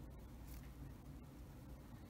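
Near silence: room tone with a steady low hum and faint hiss, and a brief faint high hiss about half a second in.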